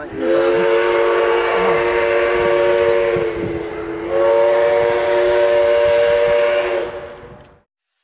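Train horn sounding two long multi-note blasts of about three seconds each, the second a little higher in pitch than the first.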